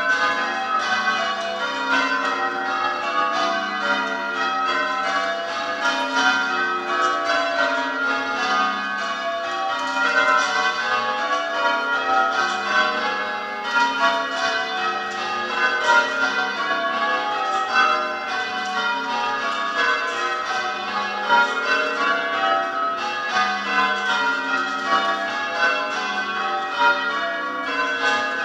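Church tower bells rung in change ringing: a continuous, even stream of strikes, the bells sounding one after another in constantly shifting order.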